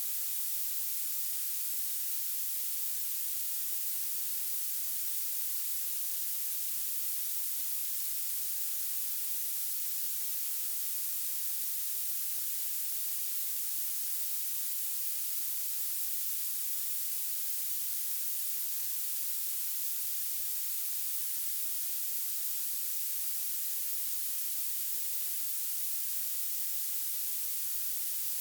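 Violet noise: a steady, thin, high-pitched hiss, strongest at the very top and with almost nothing in the bass.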